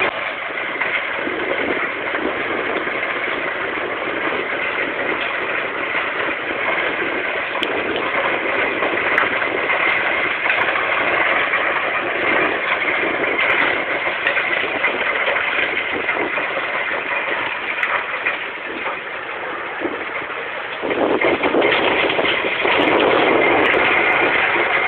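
Stone crushing plant grinding rock: a steady, dense mechanical din of crushers, screens and conveyors running. It gets louder about 21 seconds in.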